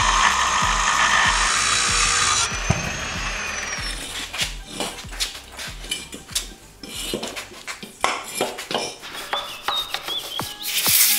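Angle grinder cutting rusty steel on a truck axle, which stops about two and a half seconds in. Then come scattered metal knocks and scraping, and a hiss of spray starts near the end.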